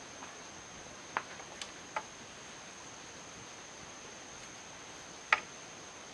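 Light clicks and taps of a steel square and ruler on a wooden beam as they are set in place for marking: three small taps between one and two seconds in and a sharper click about five seconds in. A steady high-pitched insect whine runs underneath.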